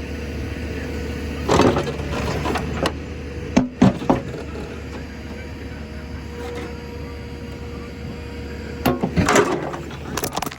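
John Deere 310 backhoe's diesel engine idling steadily, with three bursts of knocks and clatters: one about a second and a half in, a pair near four seconds, and a longer run near the end.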